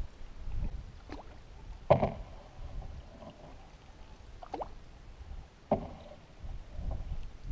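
Canoe paddling: a wooden paddle dipping and pulling through the water in separate strokes, with small splashes and drips. A sharp knock about two seconds in is the loudest sound.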